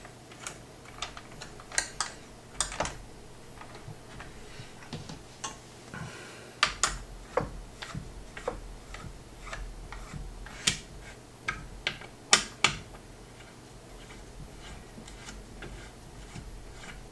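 Irregular light clicks and ticks of a screwdriver working the small screws of a CPU cooler mounting bracket, with a few sharper knocks among them.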